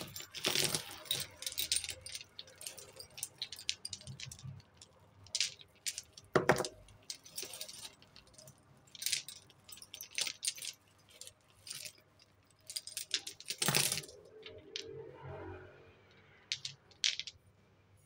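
Costume jewellery (metal chains, beads and bangles) clinking and jangling as hands rummage through a pile of it, in short, irregular clinks with a few louder knocks.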